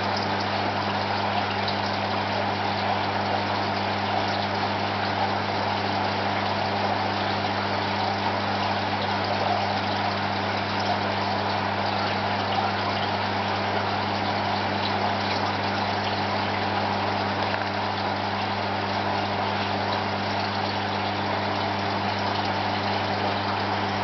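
Aquarium equipment running: a steady low electric hum with a constant hiss over it.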